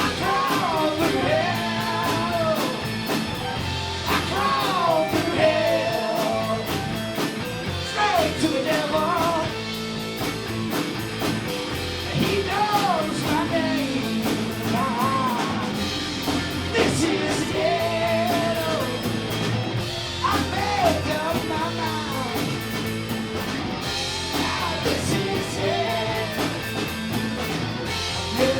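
Live rock band playing a bluesy rock song, with guitar and a wavering lead melody repeating over a steady band backing.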